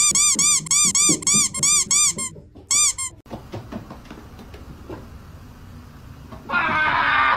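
A fast, even run of high squeaks, about four a second, each rising and falling in pitch, timed to a black cat hopping down stairs. They stop after about three seconds. Near the end a louder rough, noisy sound starts.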